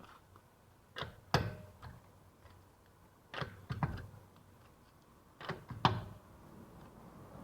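Three pairs of short knocks and clicks, the two in each pair about half a second apart: parts or tools being picked up and set down during hands-on repair work.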